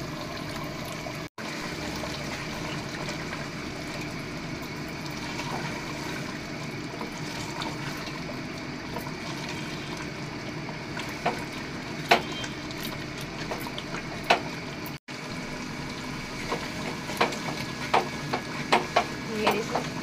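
A steady hiss of the pot cooking on the stove, with a wooden spatula knocking and scraping against the aluminium pot as the chicken is stirred. The knocks come more often in the last few seconds.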